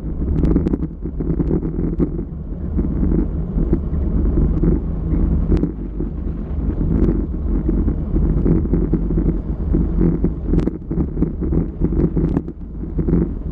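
Wind buffeting a GoPro's microphone on a fast bicycle descent at about 50 km/h, a loud, steady, fluttering rumble, with a few sharp clicks scattered through it.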